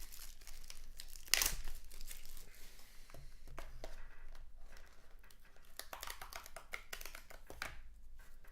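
Crinkling and tearing of a trading-card pack's wrapper as it is opened by hand, in irregular crackles, with a louder rip about a second and a half in and another near the end.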